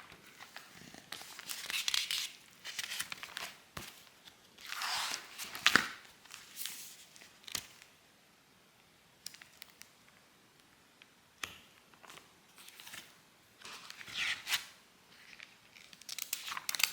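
Irregular rustling and crinkling handling noises, with a few sharp clicks and taps. There is a quieter stretch partway through.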